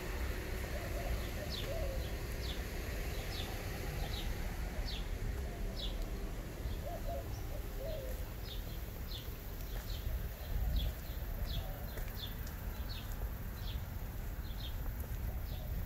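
A bird chirping over and over in short, high, falling notes, a little more than once a second, over a steady low rumble.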